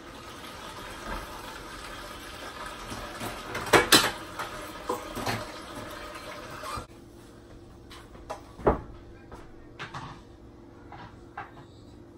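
Kitchen clatter: dishes and cups knocked and set down on the counter, with a cupboard door closing, the loudest two knocks close together about four seconds in. A steady hiss runs underneath and stops suddenly about seven seconds in.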